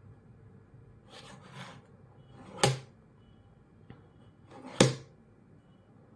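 A 6×6 Rubik's cube being handled: soft rustling, then two sharp plastic clacks about two seconds apart, with a faint click between them.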